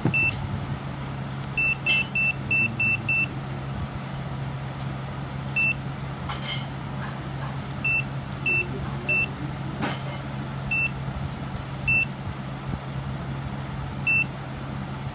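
Keypad beeps from a Softland handheld bus ticketing machine as its keys are pressed: short high beeps, a quick run of about seven near the start, then single beeps every second or so, the last two held a little longer. A steady low hum sits underneath.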